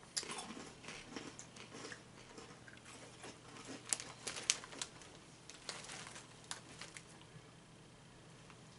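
Rap Snacks Flames Hot Crunchables, crunchy corn puffs, being chewed: irregular crisp crunches and crackles, loudest and thickest around the middle, with some rustling of the snack bag.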